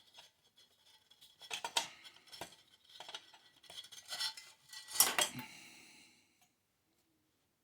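Metal tool scraping and clicking against a gas water heater's burner assembly while prying at a thermocouple retaining clip. A louder metallic clank about five seconds in rings briefly, then the sounds stop.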